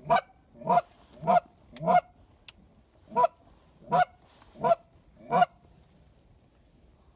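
Goose honking: eight loud honks, each rising in pitch, four in quick succession and then four more after a short pause.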